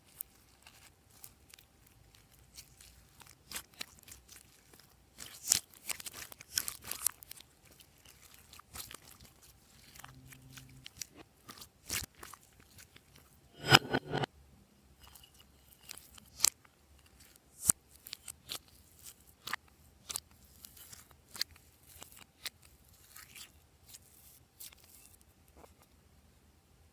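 Glossy slime being squished and stretched by hand: irregular sticky clicks and crackles, louder in a run about five to seven seconds in and again at about fourteen seconds.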